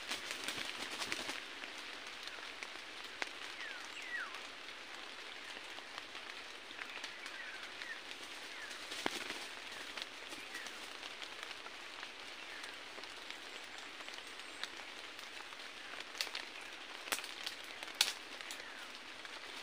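Forest-floor ambience: a steady hiss with scattered sharp crackles and clicks, the loudest near the end, and a few short, faint chirps.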